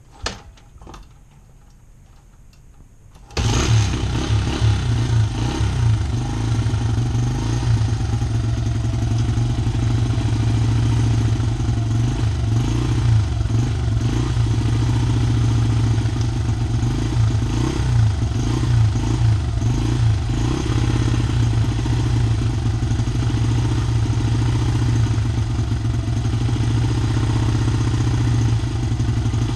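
Honda XR80R's small single-cylinder four-stroke engine starting cold on choke: a knock near the start, then it catches about three seconds in and runs steadily at a fast idle, warming up the oil.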